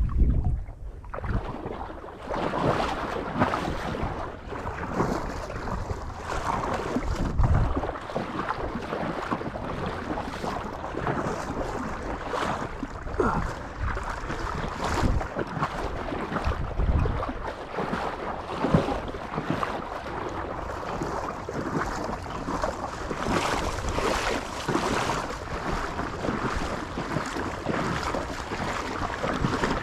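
Wind buffeting the microphone, with irregular water sloshing and rustling throughout.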